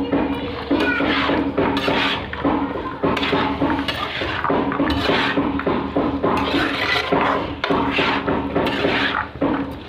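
Metal spoon stirring and scraping in a cooking pan, in repeated strokes about once a second, over a steady low hum.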